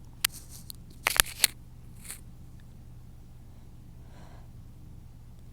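Sneeze build-up: several short, sharp sniffs and clicks in the first second and a half, a brief one about two seconds in, then a faint breath drawn in about four seconds in.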